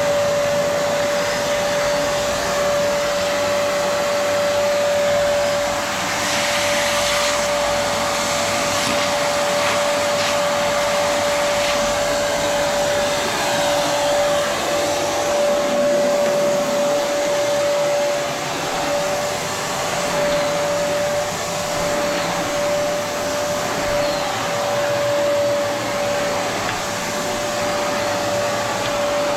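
Vacuum cleaner running steadily on carpet, its motor holding one constant whine over a broad rushing of air.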